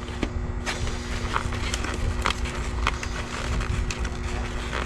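Train-station ambience: a low rumble under a steady machine hum, with scattered short clicks and ticks.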